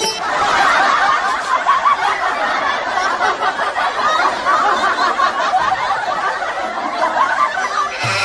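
Laughter sound effect: many voices snickering and chuckling together in a dense, continuous mass. It cuts in suddenly over the background music and stops after about eight seconds.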